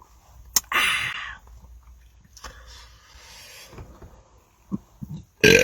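A sharp click, then a short, loud breathy rush about a second in. A man's loud belch begins at the very end.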